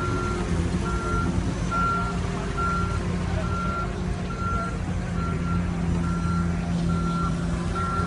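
Backup alarm of construction equipment beeping steadily, one beep a little more often than once a second, over the low steady running of a diesel machine.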